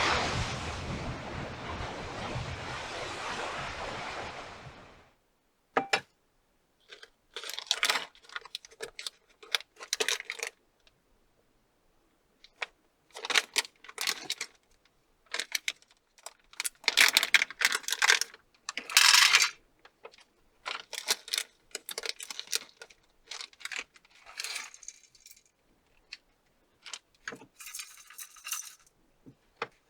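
Surf and wind noise for about five seconds, cutting off suddenly. Then, between silent gaps, short bursts of small clinks, clicks and rustling, as of objects being handled and packaging torn.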